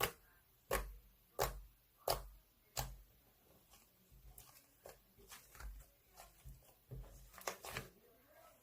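Sticky slime being pressed and pulled by hand, giving sharp sticky pops about every three-quarters of a second for the first few seconds, then softer, irregular squelches and clicks.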